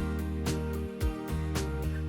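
Background music with a steady beat: sustained bass and chord notes with drum hits about twice a second.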